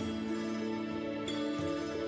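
Instrumental music with long held notes, a new note entering about a second and a quarter in.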